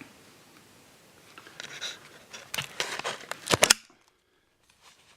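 Handling noise: scattered rustles and clicks that build to a few sharp, loud clicks, after which the sound cuts off suddenly to silence.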